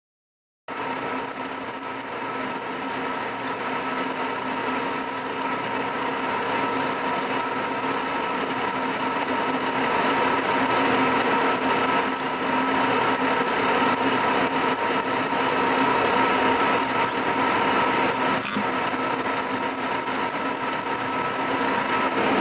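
Vertical milling machine drilling into a steel block, a steady machine whine with the grinding of the bit cutting. It starts abruptly just under a second in, and a single sharp click comes near the end.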